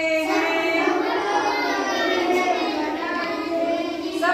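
A group of young children chanting a Hindi poem together in a sing-song voice.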